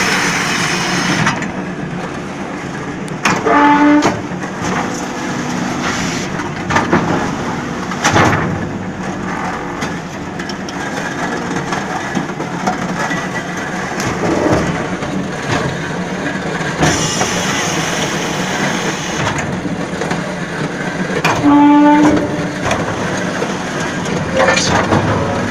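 Concrete block making machine running through its cycle: steady mechanical noise with occasional knocks and two short whines, once near the start and once near the end.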